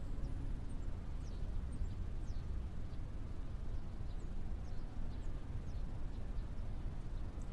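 Low, steady background rumble of room ambience, with faint short high chirps scattered through it.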